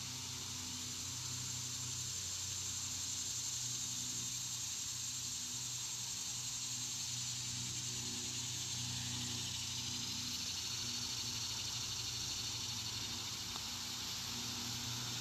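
Steady outdoor ambience: an even, high insect chorus with a low steady hum underneath.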